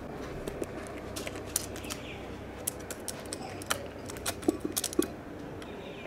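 Irregular sharp clicks and taps as a common myna pecks at grapes on a plate, its beak and claws striking the plate and the windowsill; the loudest taps come about four to five seconds in.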